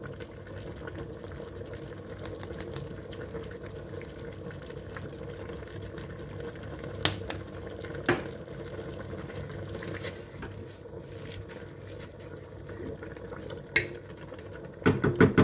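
Meat, onion and grated tomato frying in a pressure-cooker pot on a gas hob: a low, steady sizzle and hum with a few light clicks. Near the end a spoon stirs the pot in quick, loud strokes.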